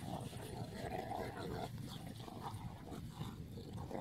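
Dogs vocalising as they play, in short, irregular sounds.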